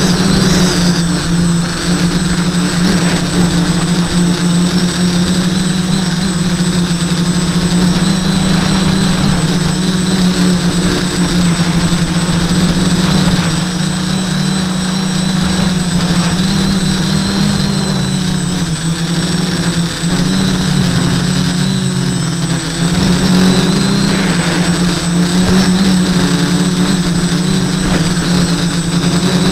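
Quadcopter's four SunnySky 980kv brushless motors and propellers buzzing steadily in flight, heard from a camera on the aircraft, the pitch wavering a little as the throttle changes.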